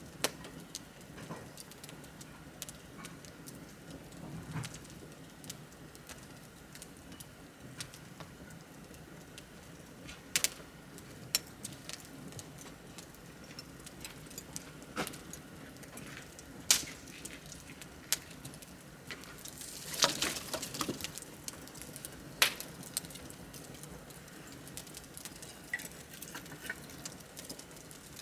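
Wood bonfire crackling: scattered sharp pops and snaps over a low steady hiss, with a brief flurry of crackles about twenty seconds in.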